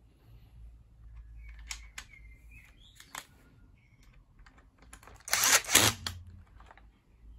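Cordless impact driver runs in one short burst of under a second, about five seconds in, driving a screw into the nail gun's plastic housing. A few light clicks and knocks of plastic parts being handled come before it.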